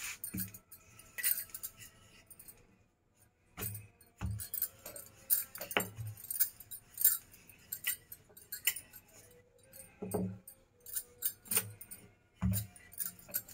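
Wooden rolling pin rolling and knocking on a granite countertop as dough is rolled out, with a dull knock every second or few, and the bangles on the roller's wrists jingling.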